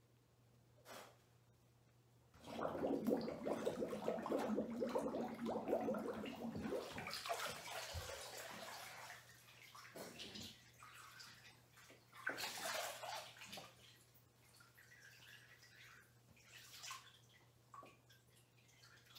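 Bathwater sloshing and splashing as a person shifts and turns over in a bubble-filled bathtub, loudest for several seconds a few seconds in, then dying away, with another short splash later.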